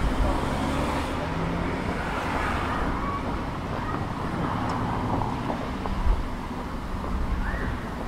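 Road traffic on a town street: a steady noise of cars going by.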